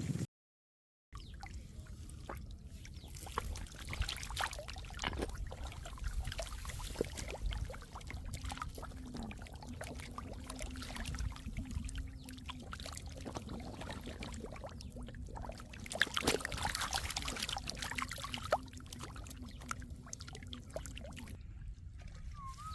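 Shallow muddy water in a drained rice field splashing, sloshing and trickling, with many small irregular splashes and clicks as the mud and water are worked by hand.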